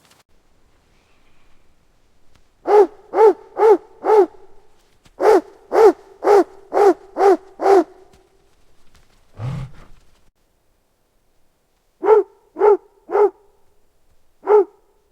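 Large Kuchi guard dog barking in short runs: four barks, then six, then three, and a single bark near the end, each one short and pitched. A brief low sound comes in the pause about nine and a half seconds in.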